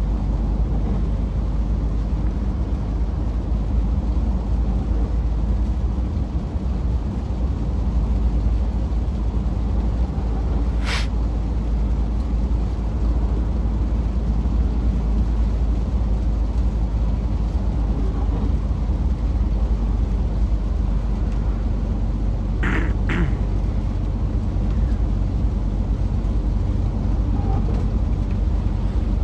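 Scania S500 truck's diesel engine running steadily under way, a low drone, with a short hiss about eleven seconds in and two more in quick succession near the end.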